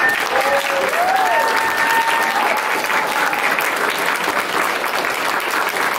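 Audience applauding steadily, with a couple of drawn-out cheers rising over the clapping in the first three seconds.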